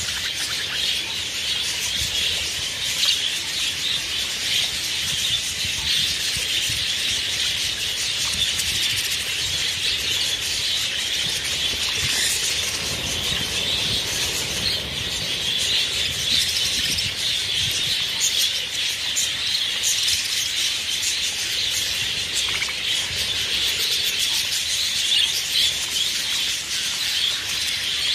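A large flock of budgerigars chattering continuously, with wings flapping as birds flutter on and off the feeding trays.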